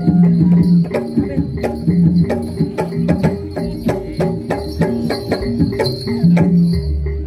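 Loud Javanese gamelan-style music accompanying a jaranan dance: rapid hand-drum strokes, a few to several a second, over sustained ringing metallophone and gong tones.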